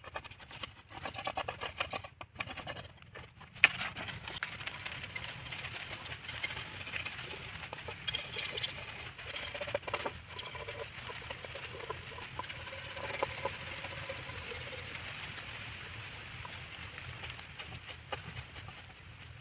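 A curved knife blade shaving and scraping a green bamboo stave in quick repeated strokes. A few separate cuts at first, a sharp knock about three and a half seconds in, then a dense run of scraping.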